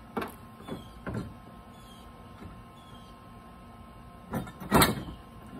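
Small clicks and knocks of a stainless bolt and nut being handled and fitted by hand, a few light ones in the first second and a louder, brief clatter near the end.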